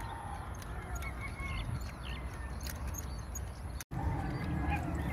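Outdoor ambience: a low rumble of wind on the microphone with faint scattered bird calls, broken by a sudden brief dropout about four seconds in.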